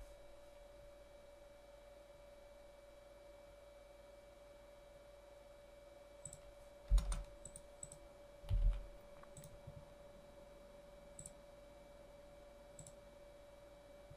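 A few scattered clicks of a computer keyboard and mouse during code editing, most of them bunched about six to nine seconds in, over a faint steady hum.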